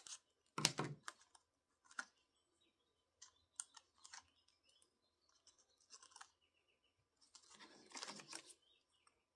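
Small scissors snipping through a sheet of foam adhesive dimensionals in a few short, sharp cuts, the loudest just under a second in, followed by the crinkle and rustle of the paper backing sheet as pieces are handled and peeled off, most plainly near the end. The sounds are faint.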